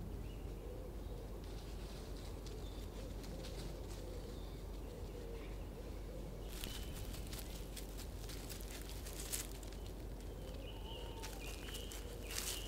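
Outdoor ambience over a steady low hum, with faint bird calls. From about six seconds in come repeated rustles and sharp clicks of something moving close by.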